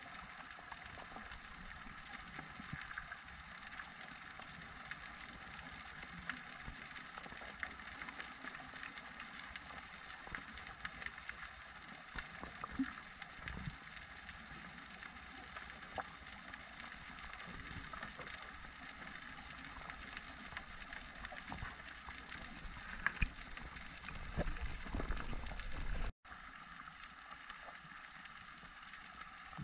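Underwater ambience picked up by a camera below the surface: a steady hiss full of small scattered crackles and clicks. Near the end comes a louder low rumble, and then the sound briefly cuts out.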